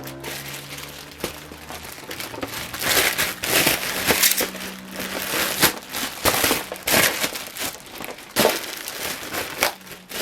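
Packaging being handled during an unboxing, crinkling and rustling in irregular bursts that grow busier a couple of seconds in.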